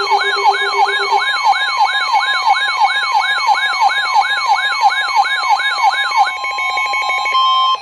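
Electronic emergency alert siren: a fast-repeating sweep, each one a quick rise and a slower fall in pitch, about two and a half a second, over steady tones. About six seconds in the sweeping stops and a steady tone holds for another second or so before cutting off.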